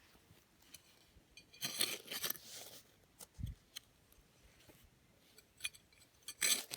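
Digging in garden soil: scraping and crunching of earth in a few short bouts with small clicks, and a single low thump about three and a half seconds in.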